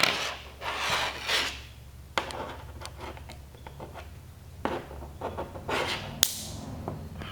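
Close handling of a plastic spring-lever wire connector and an insulated wire: rustling and rubbing, with several sharp plastic clicks, the loudest near the end.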